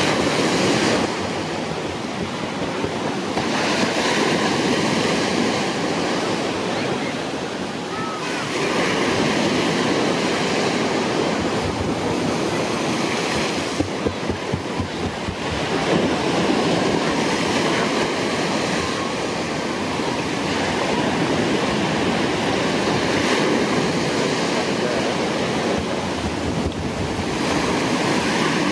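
Rushing water and wind buffeting the microphone: a steady rough rush that swells and dips every few seconds.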